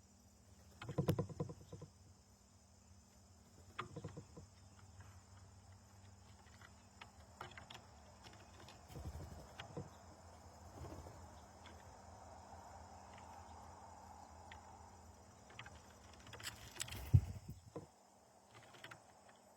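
A steady high-pitched drone of insects, with several low knocks and thumps: one about a second in, one at four seconds, one around nine seconds, and the loudest near the end.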